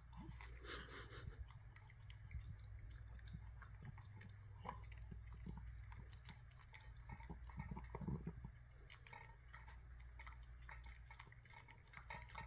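Small dog eating fruit salad from a bowl: faint chewing and crunching, with louder clusters of crunches about a second in and around eight seconds in.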